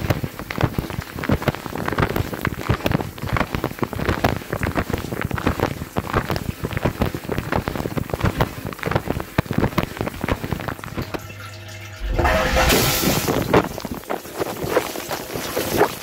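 Water from the spray arms of a Miele G 2225 SCi dishwasher splashing and pattering hard against the racks and the camera during a wash cycle. About eleven seconds in the splashing drops away briefly to a steady low hum, then a louder rush of water follows.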